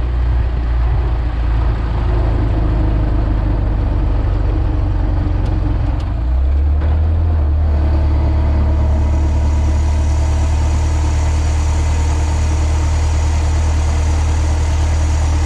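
Ford Model T's four-cylinder engine running as the car drives along: a loud, steady low drone whose pitch steps up about six seconds in.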